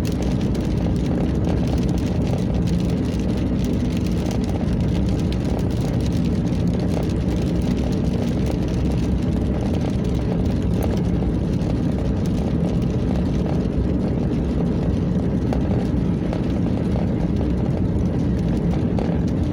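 Steady road and engine noise from inside a car driving on wet roads in the rain.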